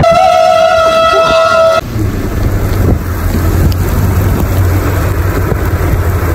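A steady, high pitched tone with overtones, wavering slightly as it starts, holds for under two seconds and cuts off suddenly. Then comes a steady rush of storm wind and rain with a low rumble underneath.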